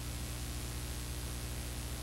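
Steady hiss with a low, unchanging hum under it: the background noise of a blank stretch of old videotape.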